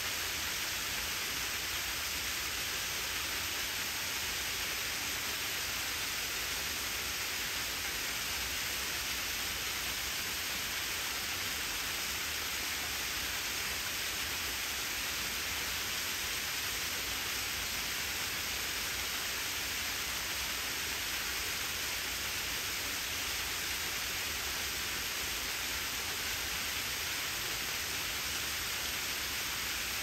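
Steady, even hiss of a small terraced ribbon waterfall, about 10 m high, splashing down layered rock ledges.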